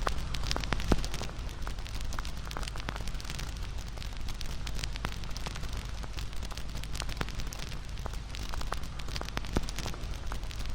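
Wood fire burning, crackling with frequent irregular pops and snaps over a steady low rumble, one louder pop about a second in.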